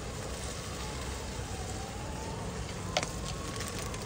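A faint siren wails slowly up and down over the steady sizzle of onion-tomato masala frying in mustard oil. One sharp click comes about three seconds in.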